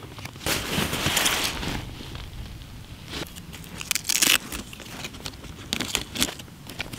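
Handling noise from hands working on a racing quadcopter on a fabric backpack: irregular rustling and crackling. A long rustle starts about half a second in, sharper crackles come around four seconds, and more follow near six seconds.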